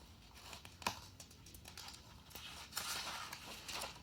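Faint handling noise: a sharp click about a second in, then a soft rustle of paper near the end, as a book page is turned.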